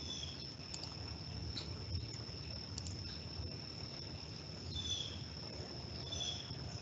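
Cricket trilling steadily at a high pitch, with a few short chirps and faint clicks over a low background rumble.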